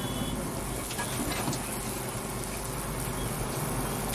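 Steady hiss and low hum of a dosa griddle station, with a few faint scrapes as cheese is grated by hand over a dosa on the griddle.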